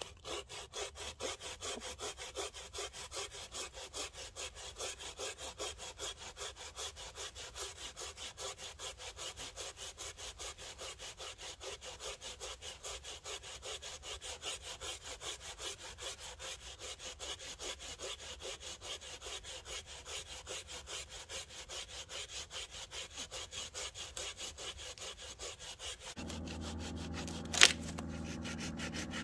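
Small folding hand saw cutting through a dry, barked log in steady, even back-and-forth strokes. A single sharp knock comes near the end.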